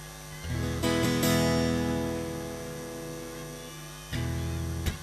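Acoustic guitar: a chord strummed about half a second in, left to ring and fade, then strummed again near the end.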